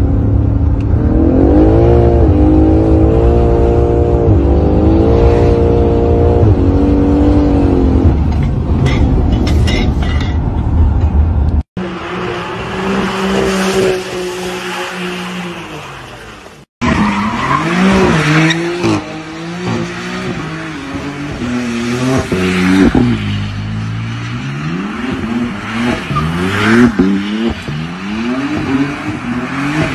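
BMW M car engines at full throttle, in three cuts. First, from inside the cabin, the engine accelerates hard, its pitch climbing and dropping back at each gear change. Then the engine is held at high revs with tyres spinning, and finally a burnout: the engine revs up and down about once a second over the hiss and squeal of spinning tyres.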